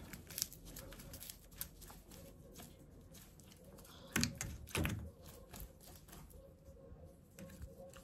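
Raven eating: faint, irregular beak clicks and taps as it picks at food, with two louder knocks about four and five seconds in.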